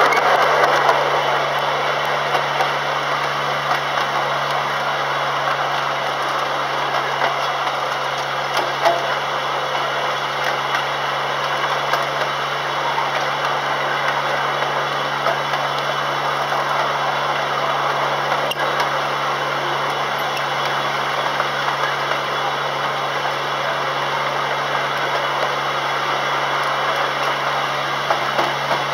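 Miniature railway train on the move, its model DA-class locomotive's engine giving a steady low hum under a constant rushing running noise, with a few light clicks.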